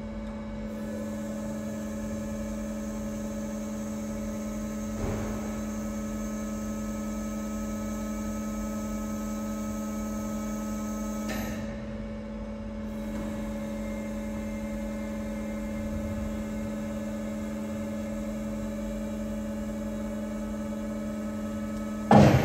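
Four-roll plate bender's hydraulic power unit running with a steady hum while the drop-end bearing arm is swung open and shut. Faint knocks come about five and eleven seconds in, and a loud knock near the end.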